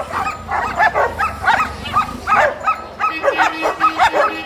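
German Shepherd dogs barking rapidly and repeatedly, about three sharp barks a second. A steady tone joins in about three seconds in.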